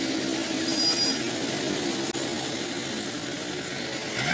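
Steady road-traffic noise: motor vehicle engines running and passing, with a low engine hum that fades out after the first second or so.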